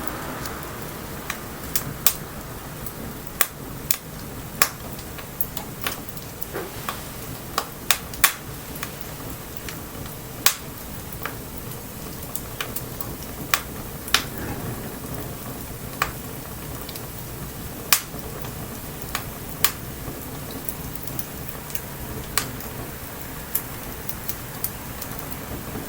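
Wood bonfire crackling, with sharp irregular pops one or two a second over a steady hiss of light rain.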